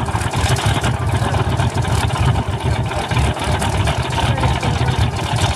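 Wright R-2600 twin-row radial engine of a Grumman TBM Avenger running steadily at low taxiing power, a loud, fast-pulsing low engine note with propeller noise.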